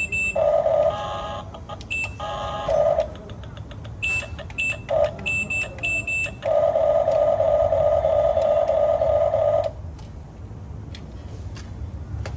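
Electronic sound effects from a toy RC backhoe loader's sound module: runs of short, high beeps, and a lower buzzing tone in two short blasts followed by one held for about three seconds.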